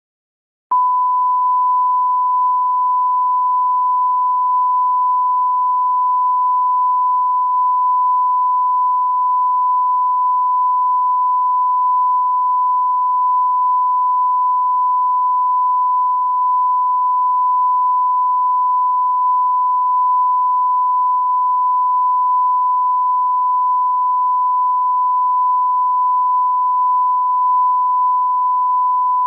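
Steady 1 kHz test tone, a single unwavering pure pitch that starts under a second in: the line-up tone laid at the head of a broadcast tape.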